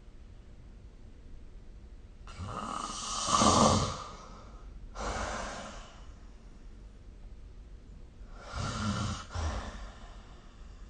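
A sleeping person snoring. The loudest snore comes about two to four seconds in, a softer breath sound follows around five seconds, and a second, shorter snore comes near nine seconds.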